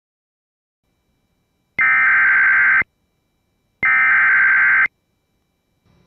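Emergency Alert System SAME header: two bursts of digital data tones, each about a second long and about a second apart. The bursts are the coded start of a severe thunderstorm warning alert.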